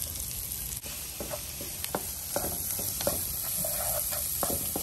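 Diced onion sizzling in hot oil and butter in a frying pan, with a slotted wooden spatula scraping and knocking against the pan in short strokes as the onion is stirred.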